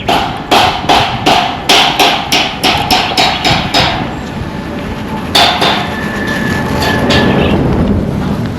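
Hammer striking metal: about a dozen quick ringing blows, roughly three a second, getting slightly faster, then a pause and another blow about halfway through. A steady noise swells near the end.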